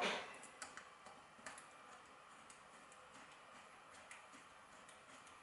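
Faint clicks and taps of a small hex driver and a steel screw as the screw is fitted and driven into a plastic 3D-printer extruder assembly. There is a louder handling rustle right at the start.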